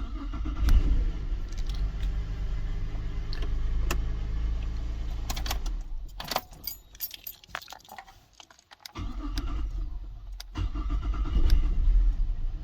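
2006 Holden Berlina engine starting and idling, switched off after about six seconds amid a few clicks and key jingles, then started again and idling; the starts come by way of a remote relay that bridges the starter relay the faulty ECU no longer switches.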